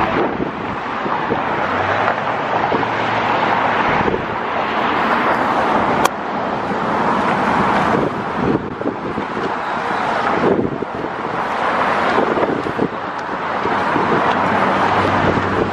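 Passing car traffic: a steady run of vehicles going by close at hand, the tyre and engine noise swelling and fading as each car passes, with some wind on the microphone.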